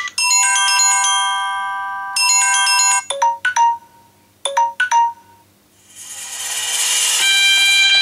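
Samsung Galaxy S7 stock ringtone samples playing through the phone's speaker, each cut off and replaced as another tone is tapped: a run of bell-like chime notes, then short beeps in two quick groups, a brief lull, and a bright tone swelling up near the end.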